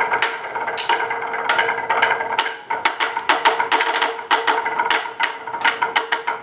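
Drumsticks tapping a rubber practice pad and clicking against each other in fast, uneven rhythms, several strokes a second, with a brief lull about two and a half seconds in. A steady tone sounds underneath.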